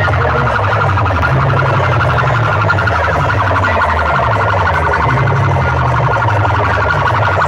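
Banks of horn loudspeakers and bass cabinets from competing DJ sound systems blasting at full volume, heavily distorted. A fast, warbling, siren-like tone rides over a deep, gliding bass line.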